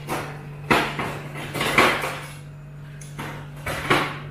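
A metal turner scraping and knocking against a frying pan while stirring minced beef, in about five separate strokes, the loudest near the start and about two seconds in.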